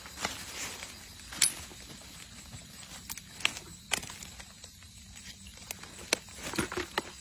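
Metal eel-catching tongs working in mud and dry leaves: a dozen or so irregular sharp clicks and taps over low rustling, as the tongs probe a burrow and grip an eel.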